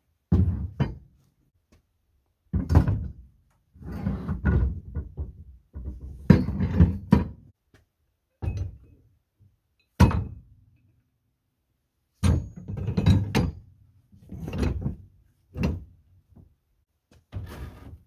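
Heavy steel three-point hitch parts being handled and set down: a dozen or so irregular thuds and knocks, a few of them drawn out for a second or so.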